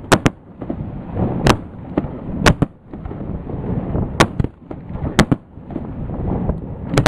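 Fireworks bursting: a string of sharp, loud bangs about once a second, some in quick pairs, with rumbling echoes between them off the surrounding buildings.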